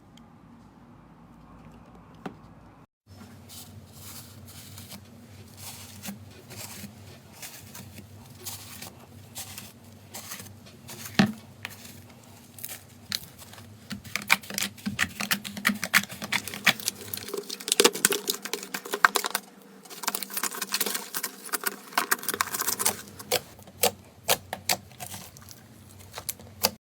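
Slime being squeezed and poked by hand, making quick irregular crackles, clicks and wet pops. It is faint at first and, after a brief break about three seconds in, grows busier and louder with several sharp pops.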